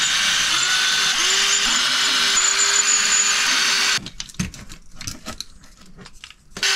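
Cordless electric screwdriver whirring in about six short bursts over roughly four seconds as it backs screws out of a 1/10-scale RC crawler's front chassis, each burst starting with a rising pitch. Then small clicks of plastic parts being handled, and the screwdriver whirs briefly again at the very end.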